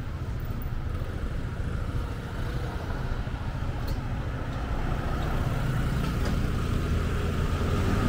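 Road traffic rumble, with a vehicle's engine growing steadily louder toward the end as it approaches.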